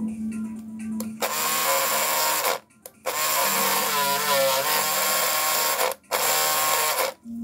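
Babyliss Pro shaver's motor switched on in three short runs, each a loud buzz that stops abruptly, the middle run the longest at about three seconds. The shaver has a noise fault that the repairer suspects comes from a worn vibrating sleeve.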